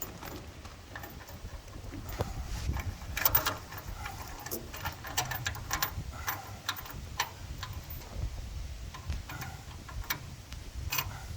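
Scattered light clicks and knocks from hands working on threaded pipe fittings, with a louder cluster of knocks about three seconds in, over a low rumble.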